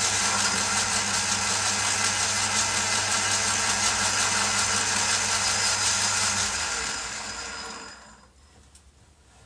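Old metal lathe running steadily with a boring bar in the workpiece, boring out a bearing seat. About six and a half seconds in the lathe is switched off and spins down, going quiet by about eight seconds.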